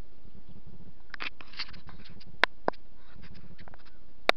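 Handling noise from fishing gear in a boat: a brief spell of light rattling clicks, then a few sharp clicks and knocks, the last one loudest, over a steady low rumble.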